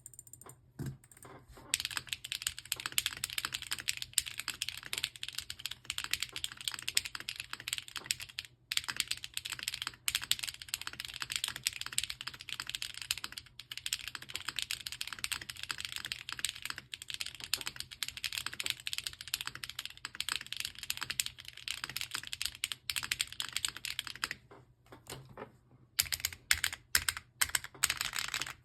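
Typing on a Geon F1-8X custom mechanical keyboard: a fast, continuous run of keystroke clacks. After a few scattered keypresses the typing picks up, then breaks off for about a second and a half near the end before starting again.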